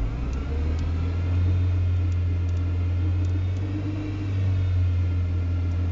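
Audi 80 B4's 2.0-litre four-cylinder engine and CGT gearbox accelerating in third gear, heard from inside the cabin: a steady low drone that grows a little louder, with a faint rising whine above it. The damaged gearbox hums and gives a faint rattle in this gear.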